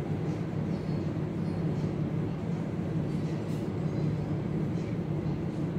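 A steady low background rumble, even and unchanging throughout.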